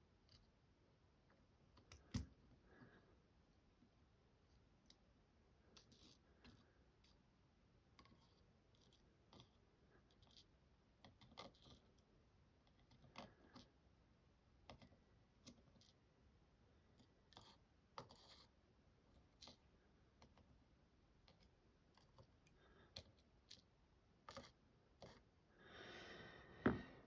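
Faint, scattered small clicks of tiny metal lock pins and parts being handled and set down one by one, with one louder click about two seconds in.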